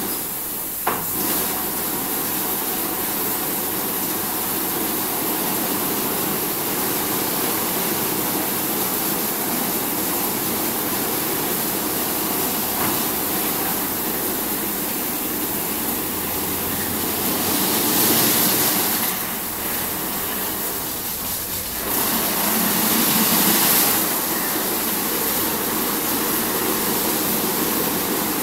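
Automatic rollover car wash at work: a steady hiss of water spray and the whirr of its rotating brushes. The hiss grows louder twice, about two-thirds of the way through.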